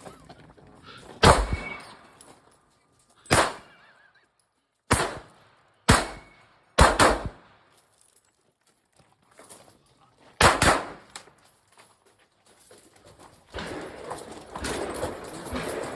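Six gunshots at uneven intervals over about ten seconds, then a softer rough noise near the end.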